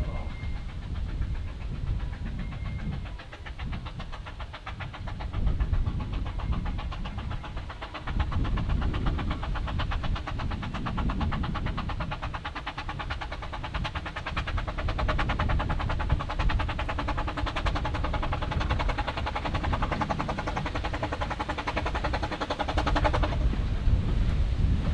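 Gartell Light Railway No.6, a 2 ft gauge 0-4-2 tank steam locomotive, working as it approaches: a rapid, even beat that slowly grows louder over wind rumbling on the microphone. The beat stops abruptly near the end.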